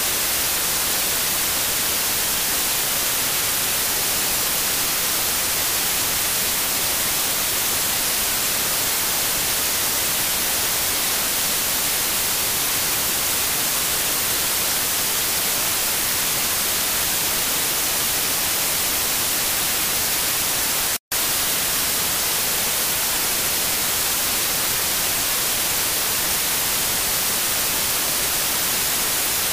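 Steady static hiss, even and unchanging and strongest in the high end, broken by a split-second dropout to silence about two-thirds of the way through.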